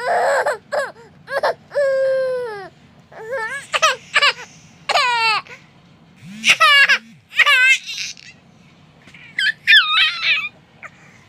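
Baby laughing in a string of high-pitched bursts and squeals with short pauses between them, one drawn-out call falling in pitch about two seconds in and shriller squeals near the end.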